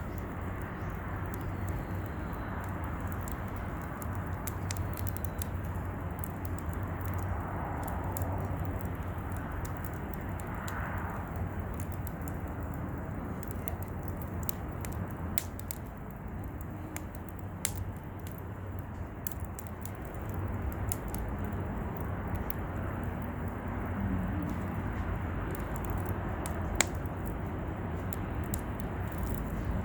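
Wood campfire crackling, with scattered sharp pops and one louder snap near the end, over a steady low rushing background.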